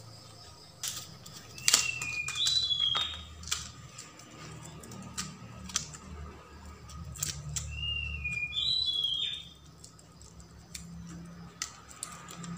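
Handling noise from a camcorder and its parts being worked by hand: irregular plastic clicks and taps. Two clusters of short high chirps are heard, a couple of seconds in and again after about eight seconds.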